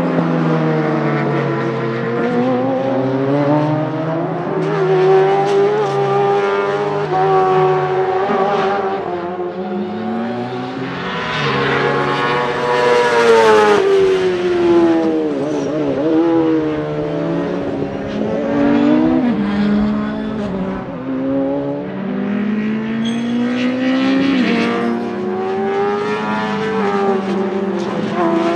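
Yamaha R1 1000 cc inline-four motorcycle engine in a Fiat X1/9-based race car, revving hard on track. The pitch climbs through each gear and drops sharply at each shift, and is loudest as the car passes near the middle.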